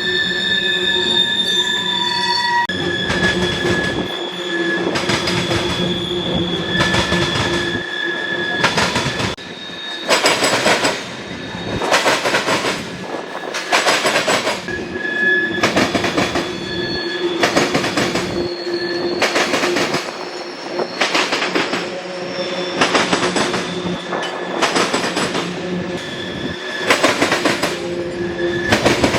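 Freight train of ethanol tank cars rolling past, its wheels squealing steadily on the rails, with regular clacks, often in pairs, as the wheel sets pass.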